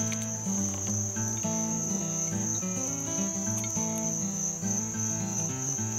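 Insects trilling in one steady high-pitched drone. Underneath, quieter low note-like tones step up and down in pitch every half second or so.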